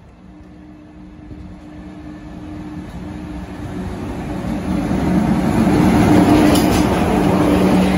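Electric locomotives hauling a goods train approach over the crossing and pass close by, growing steadily louder. A steady low hum from the locomotives is joined by rising rumble of wheels on rail, with a couple of sharp clicks near the end.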